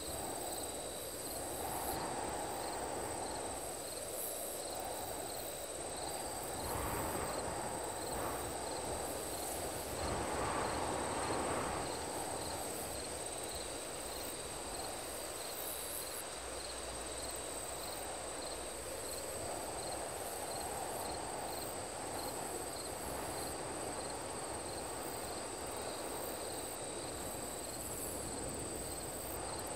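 Night insect ambience: crickets with a steady high trill and a regular pulsing chirp, over a broad whooshing layer that swells and fades, loudest about a third of the way in.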